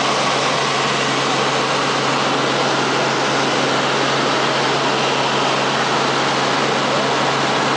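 Steady, loud engine drone and rushing noise heard from inside a moving vehicle, unchanging throughout with a constant low hum beneath.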